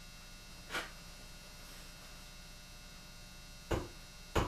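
Small hammer tapping a punch to drive a roll pin into a Colt Walker revolver's loading-lever latch: one faint tap about a second in, then two sharp taps near the end. A steady mains hum sits underneath.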